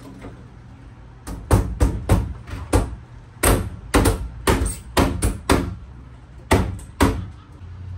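An irregular run of sharp knocks, about fifteen in six seconds, as a wall panel is knocked and pressed into place against the trailer's plywood wall and ceiling. A low steady hum runs underneath.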